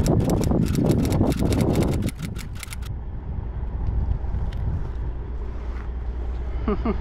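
An engine running steadily at low speed, with a fast series of sharp crackles and rumbling over it for the first two to three seconds.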